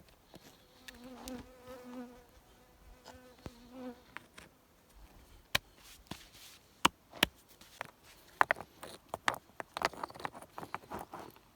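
A flying insect buzzing close by, a steady hum for about three seconds. After that, a string of sharp clicks and knocks.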